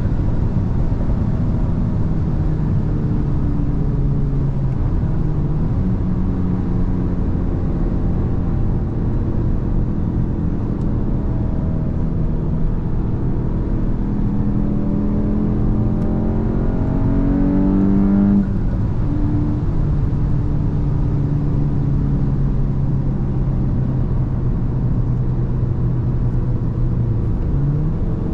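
Volkswagen Mk8 GTI's turbocharged 2.0-litre four-cylinder engine running while driving. Its pitch climbs steadily for a few seconds past the middle, then drops suddenly and holds steady and lower.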